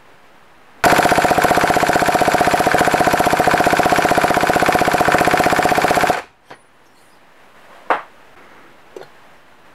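Small two-stroke moped engine being spun over by a power drill on the crankshaft to test its compression: a loud, rapid, even pulsing that starts suddenly and stops suddenly after about five seconds. A few light clicks follow.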